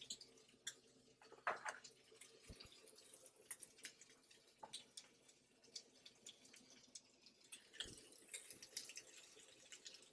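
Faint, irregular crackles and pops of thin deli turkey slices sizzling on a hot griddle.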